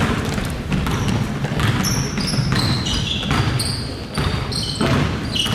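Basketball game play on an indoor court: a ball bouncing on the floor and short, high sneaker squeaks, several of them in quick succession.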